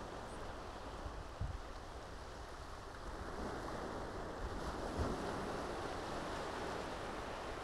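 Sea waves washing on the shore in a steady rush that swells a little about halfway through, with wind buffeting the microphone in low rumbles.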